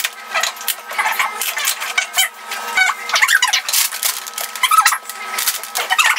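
Crinkling of plastic wrapping and rustling of a large paper instruction sheet being unfolded, with clicks and short squeaks of plastic parts as a baby swing is put together.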